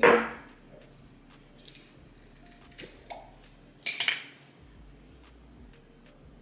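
Glass sauce jars handled on a kitchen counter: a loud knock as a jar is set down or picked up, a few light clicks, then a brief clatter about four seconds in.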